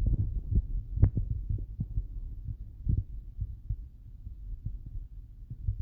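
Wind buffeting the microphone: a steady low rumble broken by irregular thumps, the strongest about a second in.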